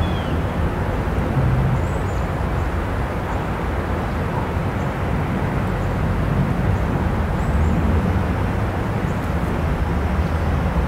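Vehicle engine running steadily, a constant low rumble, with a couple of faint high chirps above it.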